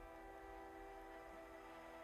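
Faint background music with held, sustained tones.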